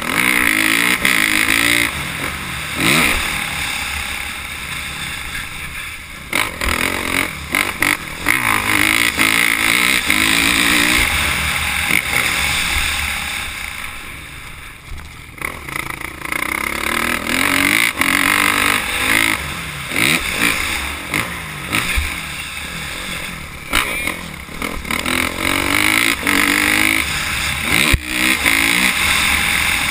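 Dirt bike engine heard from an onboard camera, revving up and down again and again as the throttle opens and closes on a motocross track. It is quietest about halfway through, with sharp knocks here and there.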